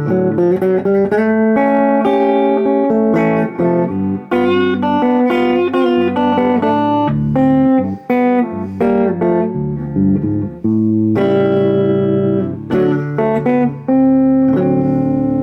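Semi-hollow electric guitar played through a Fender Sidekick Reverb 25 solid-state practice amp: single-note blues licks with a little gain, heavy bass and light reverb. A note is left ringing out near the end.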